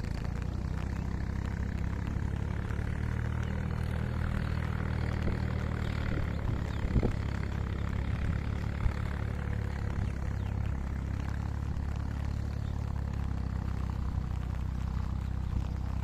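A motor running steadily with a low hum, with a short knock about seven seconds in and another near nine.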